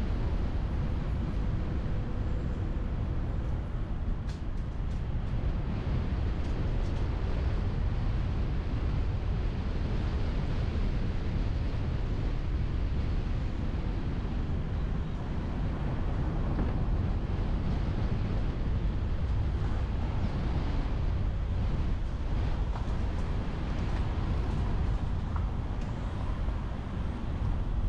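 Steady low rumble of a car on the move: road and wind noise picked up by a car-mounted GoPro.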